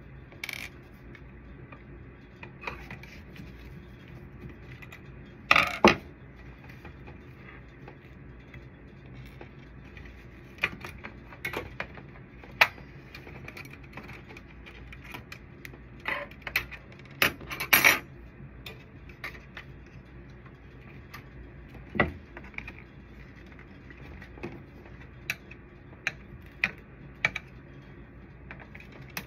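Scattered clicks and clinks of small plastic and metal parts and a screwdriver as a copier drum unit is taken apart by hand, loudest about six seconds in and again around seventeen to eighteen seconds, over a steady low hum.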